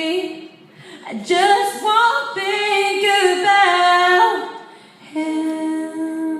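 Female voice singing a cappella, a pop melody in sung phrases with a brief breath about a second in and a held note near the end.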